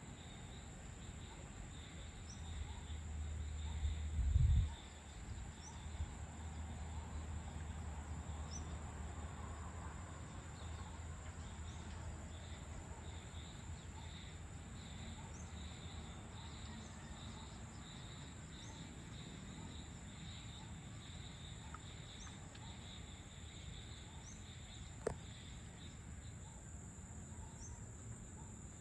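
Evening insect chorus of crickets and other insects, a steady high-pitched shrill, with short chirps repeating every second or so. A low rumble swells over the first few seconds, is loudest about four seconds in, then fades. One sharp click near the end.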